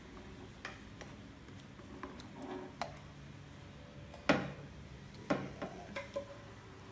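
A spatula scraping and tapping against a non-stick frying pan as thick chili sambal is scraped out into a bowl: a few scattered clicks and knocks, the loudest about four seconds in.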